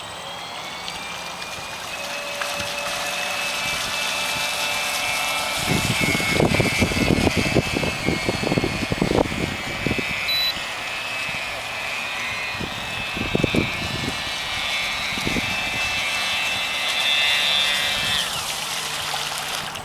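Radio-controlled model speed boat's motor whining at high speed, rising in pitch over the first couple of seconds, then holding steady and cutting off about eighteen seconds in as the boat is throttled back. Loud low rumbling bursts come in the middle.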